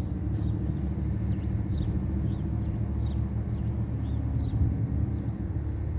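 Steady low rumble of a running engine, with faint short high chirps repeating about every half second.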